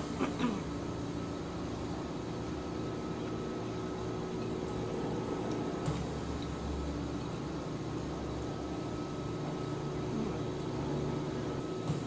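Steady low mechanical hum with a low rumble that swells for a few seconds in the middle, and a few faint clicks of chopsticks stirring noodles in a bowl.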